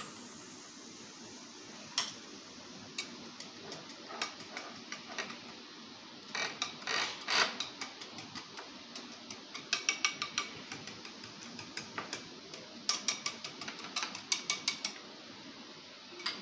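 Wire balloon whisk clicking against a glass bowl as yogurt is beaten into raita: a few single clicks, then quick runs of clicks with short pauses between.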